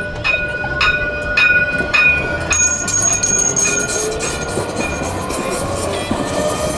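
Kaohsiung light rail tram running past with steady, high-pitched wheel squeal. For the first couple of seconds there are regular clicks about twice a second.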